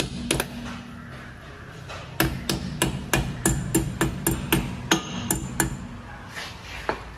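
Hammer tapping a metal dust cap into the hub of a Tata Manza's rear brake drum: two blows, a pause, then a quick run of about a dozen light strikes, three to four a second, with one more near the end. The drum rings on between the strikes.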